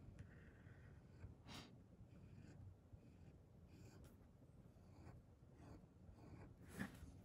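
Faint scratching of a fine-tip pen drawing short strokes on paper, with one louder stroke near the end.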